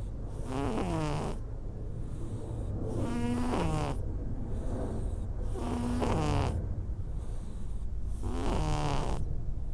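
Cat snoring in deep sleep: four pitched, whistling breath sounds about every two and a half seconds, each sliding down in pitch, over a low steady rumble.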